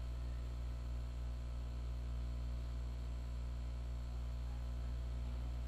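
Steady low electrical hum, mains hum with its overtones, unchanging throughout with no other sounds.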